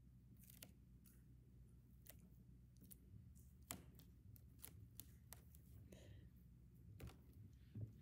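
Faint scattered snips and clicks of scissors trimming sticky foam tape around a cardstock frame, the sharpest about halfway through, over near-silent room tone.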